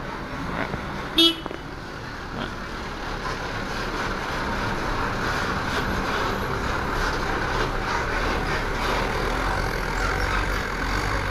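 A bus horn gives one short, high-pitched toot about a second in, the loudest sound here. After it, steady engine and vehicle noise slowly builds as a tour bus pulls away.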